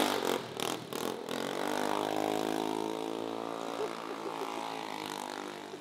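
An engine running steadily, its pitch sinking slowly, after a few sharp pops or knocks in the first second or so.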